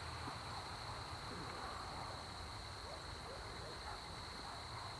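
Faint chorus of crickets, a steady unbroken high trill, over a low background hum.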